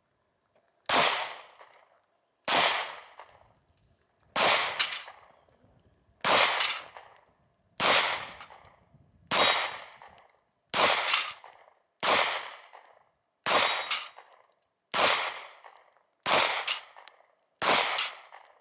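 Semi-automatic pistol fired about a dozen times at a steady pace, roughly one shot every second and a half, some as quick pairs. Each shot is followed by a fading echo.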